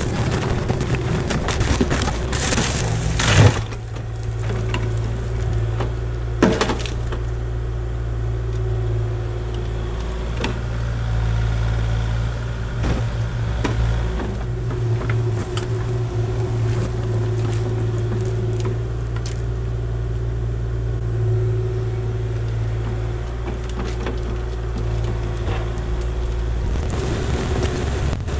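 Kubota KX040-4 mini excavator's diesel engine and hydraulics running steadily with a forestry mulcher head, a low hum with a faint whine over it. Crackling and snapping of debris for the first three seconds ends in a loud crack, and a single sharp knock follows a few seconds later, while a tire is caught in the mulcher.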